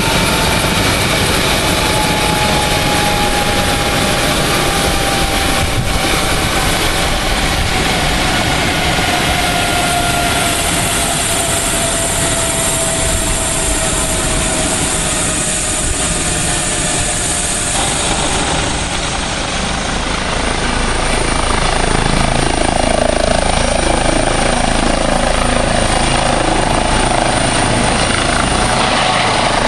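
Eurocopter EC135 air ambulance helicopter running with its rotors turning, a faint whine sliding slowly down in pitch over the first dozen seconds. It grows louder from about twenty seconds in as it lifts off into a hover.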